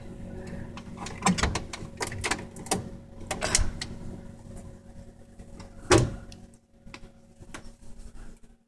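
A plastic water bottle is handled in a freezer, crinkling and clicking and knocking against the shelf, with a loud knock just before six seconds in. A low steady hum runs underneath.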